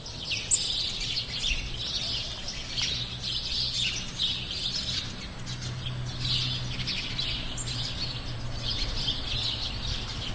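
Many small birds chirping and calling over and over, with a low steady hum underneath.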